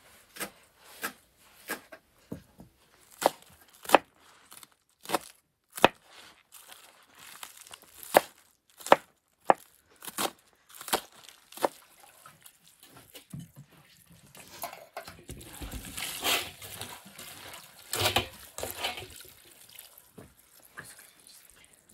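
Knife chopping green onions on a wooden board: sharp, uneven cuts about one or two a second. Later, water running into a metal bowl of chopped onions, with rustling as a hand turns them over.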